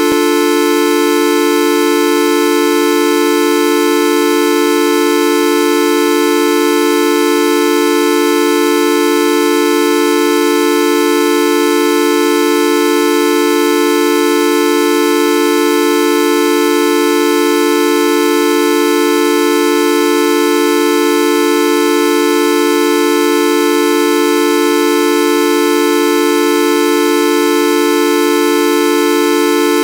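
The 'Videoup V1.2' sound effect stretched into a continuous drone: a loud, buzzy, horn-like tone with many overtones that never changes in pitch or level.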